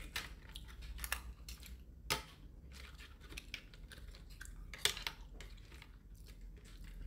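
Escargot shells clicking and rattling against one another and against a foil baking tray as they are picked out by hand, in irregular small clicks with two sharper ones about two and five seconds in.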